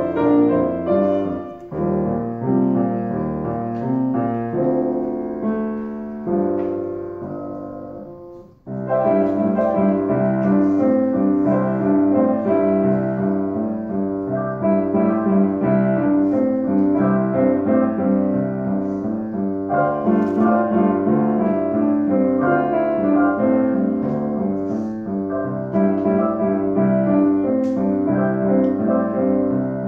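Piano being played by two children seated together at the keyboard, a steady run of notes and chords. The sound dies away about eight seconds in, then the playing comes back in loudly.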